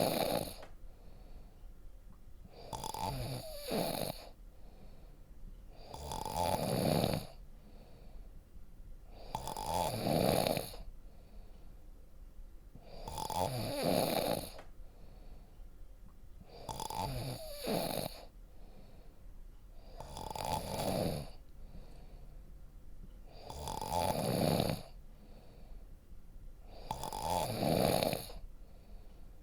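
Deep snoring in a slow, steady rhythm, one long snore about every three and a half seconds.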